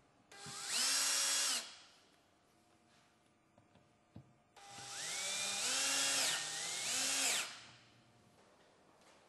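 Cordless drill-driver driving screws to fasten a metal bracket to a panel, in two runs. The first run near the start is short: the motor whine rises to speed, holds for about a second and winds down. The second, about four and a half seconds in, lasts around three seconds, its pitch shifting as the screw drives home.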